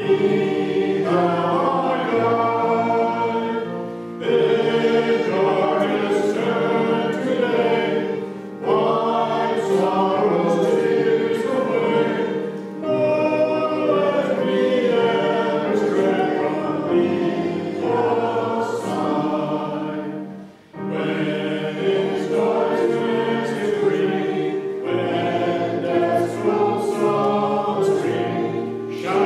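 Many voices singing a hymn together, in phrases of a few seconds with brief breaks for breath between them.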